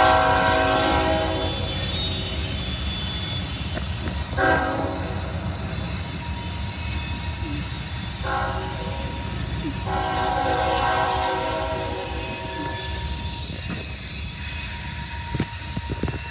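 Diesel freight locomotives sounding a multi-note air horn four times: a long blast, two short ones, then a long one. A steady low rumble from the train runs underneath.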